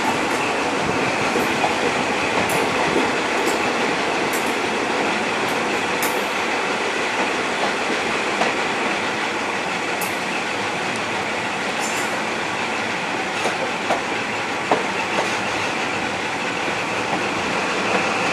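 High Speed Train (InterCity 125) running along the line, heard from an open window: a steady rush of wind and wheel-on-rail noise with scattered sharp clicks.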